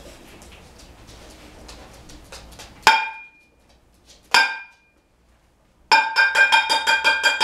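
A metal pan struck sharply twice, each hit ringing with a bright metallic tone, then beaten in a fast run of about a dozen strikes near the end. It is the sudden noise of a puppy aptitude test's sound-sensitivity check.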